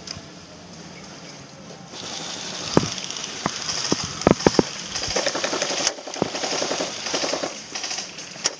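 Airsoft guns firing in rapid automatic bursts, with a run of sharp cracks from about three seconds in.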